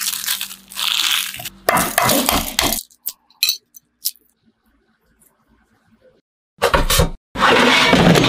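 Aluminium foil crinkling and tearing as it is peeled open from a baked egg, followed by a few faint small clicks as the eggshell is peeled. Near the end there is another loud burst of rustling noise.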